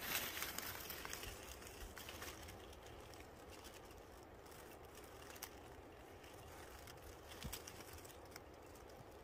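Quiet outdoor ambience with a soft rustle in the first second and a few light clicks and rustles after.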